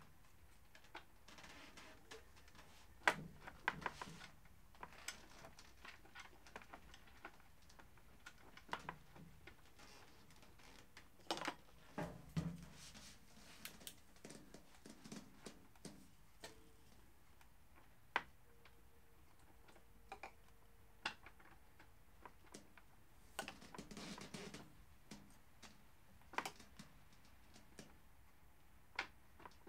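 Sporadic light clicks, taps and clinks of metal parts and bolts being handled, with small clusters of them a few seconds in, around the middle and near the end.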